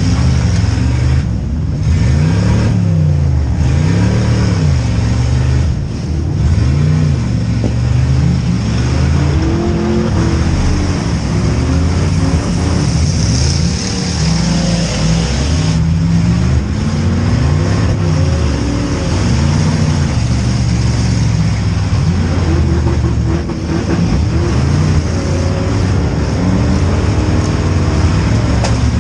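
V8 demolition derby car engines revving up and down over and over, their pitch rising and falling every couple of seconds as the cars accelerate, back up and ram.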